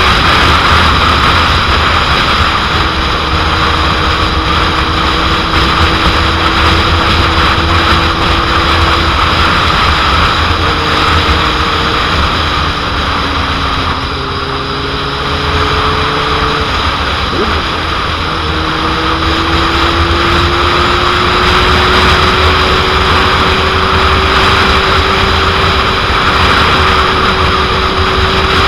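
Heavy wind noise buffeting the microphone at road speed on a 2001 Suzuki GSX-R750, with the bike's inline-four engine note running underneath. The engine pitch eases off a little about halfway through, then climbs slowly again.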